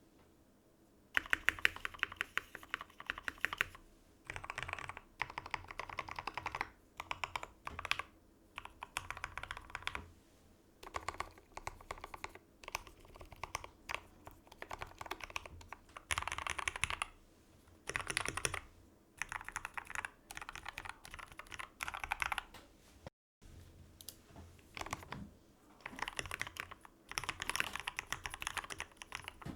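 Mechanical keyboard being typed on: a KBD75V2 with a brass plate, lubed Gateron Black Ink linear switches and PBT keycaps. Fast runs of keystrokes alternate with short pauses, and the typing starts about a second in.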